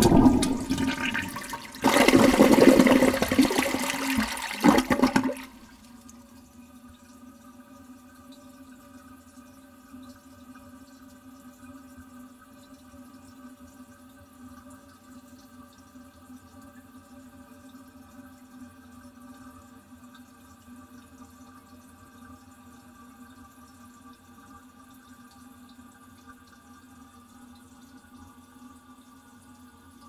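Toilet flush recorded from very close: a loud rush of water in two surges for about five seconds that cuts off abruptly. It is followed by a much quieter steady hiss with a faint hum, as the cistern refills.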